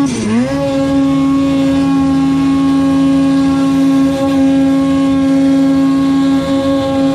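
Snowmobile engine held at steady high revs after a brief dip in the first half second, as the sled bogs into deep powder on its way to getting stuck.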